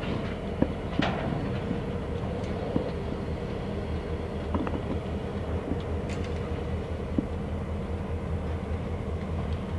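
Canadian Pacific diesel locomotives running slowly through the yard: a steady low engine drone with occasional sharp clicks and clanks, the clearest about a second in and again about six seconds in.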